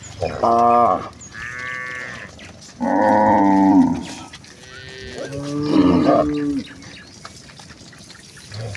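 Village cattle mooing as a herd: four drawn-out moos in a row, about a second each, one of them higher-pitched than the others.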